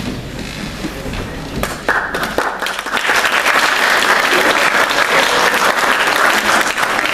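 Audience applauding, thin at first and swelling to full clapping about two to three seconds in.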